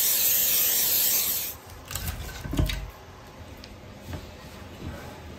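Aerosol cooking spray hissing steadily from the can onto Brussels sprouts in a cast iron skillet, stopping about a second and a half in. A few knocks and thumps follow.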